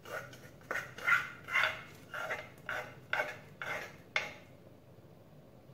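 Hollow knocks on an upturned clay mortar as it is rapped to shake pounded chili out into the pot: about nine knocks over four seconds, then they stop.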